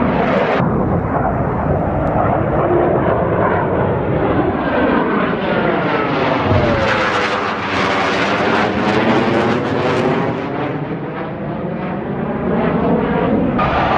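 Fixed-wing aircraft flying past at an air show: a loud engine rush with a sweeping, phasing whoosh, its whine falling in pitch as it passes, and brightest about 8 to 10 seconds in.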